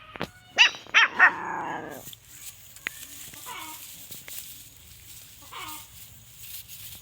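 A dog barking three times in quick succession about half a second in, followed by a few fainter calls later on.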